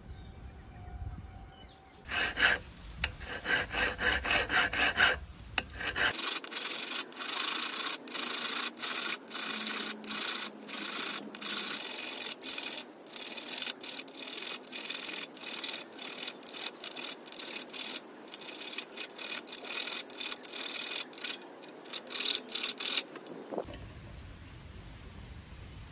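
Quick back-and-forth rasping strokes of hand shaping work on a small part. A short run of strokes starts about two seconds in, then a longer steady run of two to three strokes a second stops near the end.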